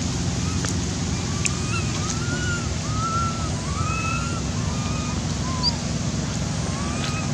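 A young long-tailed macaque giving a string of short, high coos that rise and fall in pitch, over a steady rush of wind noise on the microphone.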